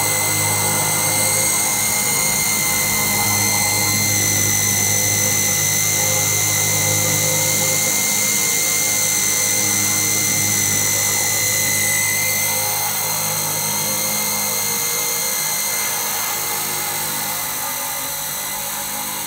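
Belt-driven spindle of a homemade CNC router running steadily with a high whine over a low motor hum while its bit drills into plywood. About two-thirds of the way through, the low hum fades and the sound gets a little quieter.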